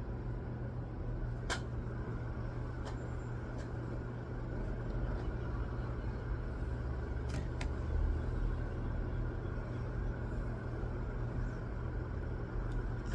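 Steady low background rumble, with a few light clicks and taps of small objects being handled, about one and a half seconds in and again about seven and a half seconds in.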